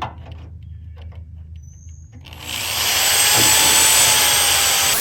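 Hand-held power drill starting about two seconds in and boring into the brush hog's metal without a pilot hole: a loud grinding whir with a high whine over it. Before it starts, a few small clicks over a low steady hum.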